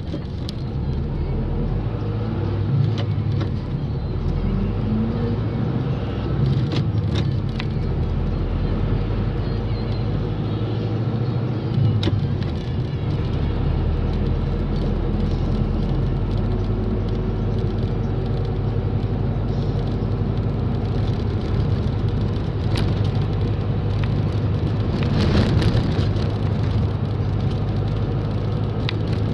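A vehicle's engine running with road noise, heard from inside the vehicle as it pulls away and drives on in traffic. The engine pitch rises briefly in the first few seconds as it accelerates, then settles into a steady drone.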